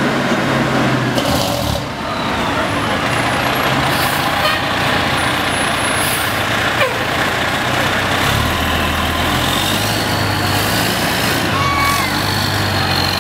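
Fire department ladder truck's diesel engine running loud as the truck rolls slowly by. Its low engine note strengthens about eight seconds in.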